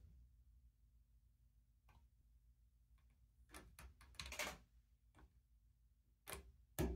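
Lego bricks clicking and tapping as they are handled and pressed onto a brick-built display stand: scattered sharp plastic clicks, a quick cluster about four seconds in and a louder snap near the end, over a faint steady hum.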